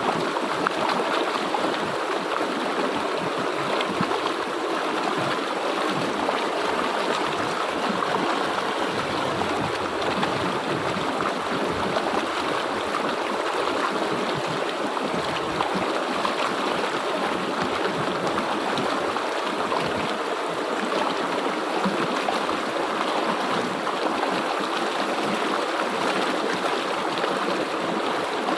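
River water flowing and rushing over rocks, a steady even rush with light gurgling.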